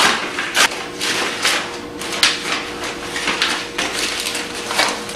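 Paper envelope being opened by hand and the letter pulled out: a run of irregular rustles and tears of paper.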